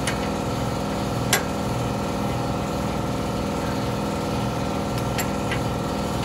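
Sharp metal clicks from a ratchet and wrench turning the bolt of a bushing press tool: one loud click about a second in and two fainter ones near the end. A steady machine hum runs underneath throughout.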